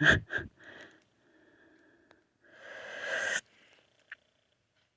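A person breathing close to the microphone: a few short sounds at the start, then one long breath about two and a half seconds in that grows louder and stops abruptly.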